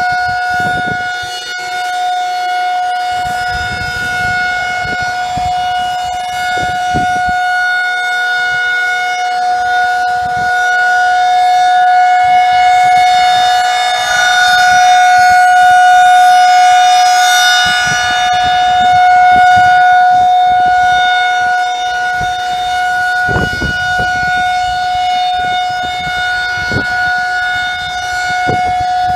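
Outdoor tornado warning siren sounding a steady, unwavering tone during a monthly test, not a real warning. It grows louder through the middle and eases off again toward the end.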